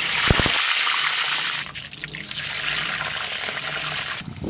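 Potato pieces frying in hot oil in a kadai: loud sizzling that starts as they go in, eases briefly about a second and a half in, then carries on until it cuts off near the end.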